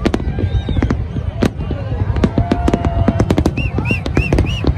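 Fireworks display: a rapid, irregular string of sharp bangs and crackles over a continuous low rumble. Short high whistles rise and fall about three times a second near the end.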